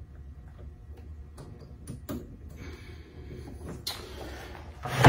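Hands handling wiring, connectors and parts in an electric riding mower's battery bay: scattered small clicks and rustles, a sharp click about four seconds in, and a loud metallic clank at the very end.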